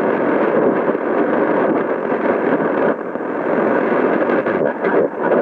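Shortwave receiver in narrow AM mode being tuned between stations in the 60-metre band: steady, muffled static hiss with scattered crackles and no clear station.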